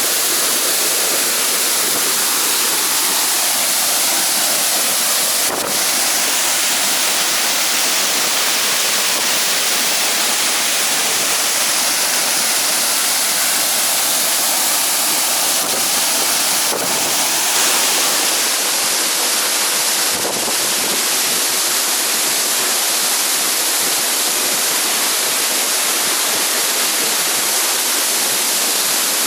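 Waterfall crashing: a loud, steady rush of falling water close by.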